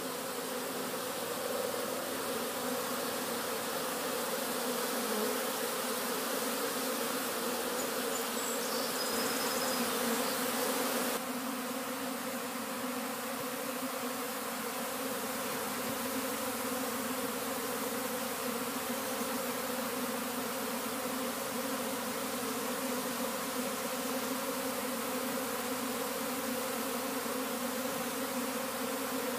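A honeybee colony swarming out of its Warré hive: thousands of bees in flight make a steady, dense buzzing hum, slightly quieter after about eleven seconds.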